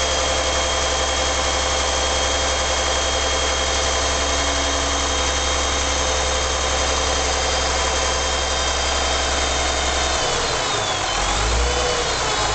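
Gardner 6LXB six-cylinder diesel engine of a Dennis Dominator bus running steadily at idle, with a high steady whine over it.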